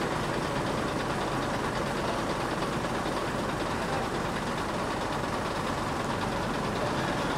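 Daewoo BH115 bus engine idling steadily, heard at its exhaust tailpipe.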